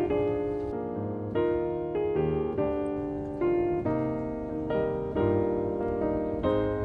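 Piano music: notes and chords struck one after another, each fading before the next.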